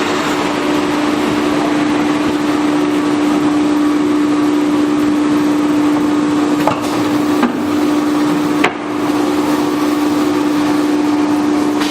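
Fastcut 1325 CNC router spindle running under power at a steady pitch over a broad rushing noise. Three short knocks are heard past the middle.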